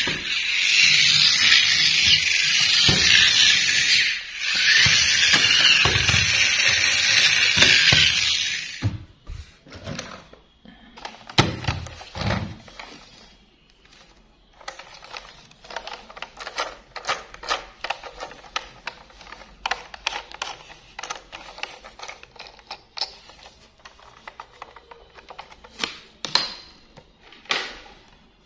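A loud, steady hiss-like noise for about the first eight and a half seconds, which cuts off abruptly. After that come many light clicks, taps and knocks of a plastic battery-powered toy locomotive being handled and its battery cover opened.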